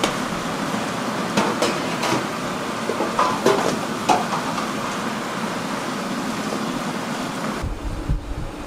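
Steady mechanical or room noise with a few sharp knocks and clatters. Near the end the background changes abruptly to a low rumble like wind on the microphone.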